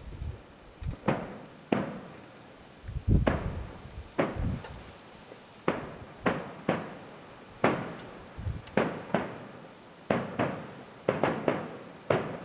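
Fireworks display about a mile away: an irregular run of sharp bangs, each trailing off in a rolling echo. A deeper, louder boom comes about three seconds in.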